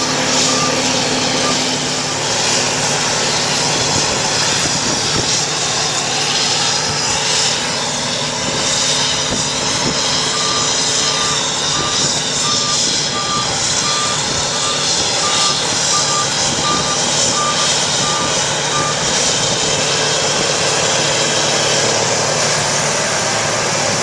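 John Deere round-bale cotton picker running steadily under load in the field. A warning beeper sounds a series of short, evenly spaced beeps at the start and again from about ten seconds in until nearly twenty seconds.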